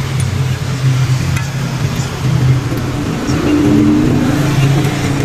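A motor engine running steadily with a low hum, and a brief higher tone about three and a half seconds in.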